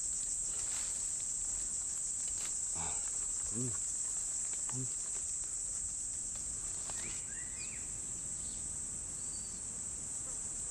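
Steady high-pitched chorus of forest insects. A few short murmurs of a man's voice come about three to five seconds in, and a couple of brief chirps a little after the middle.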